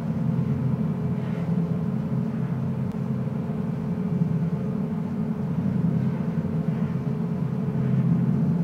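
A steady low rumbling drone, with a faint steady hum above it.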